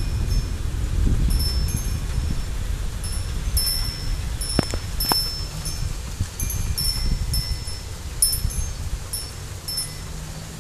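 Wind chimes ringing in irregular clusters of short, high tinkling notes as storm gusts knock them about, over the low rumble of wind buffeting the microphone. Two sharp clicks come near the middle.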